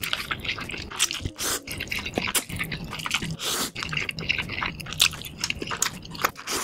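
Close-miked slurping and chewing of noodles: wet mouth smacks and clicks in an irregular run, with a few longer sucking slurps.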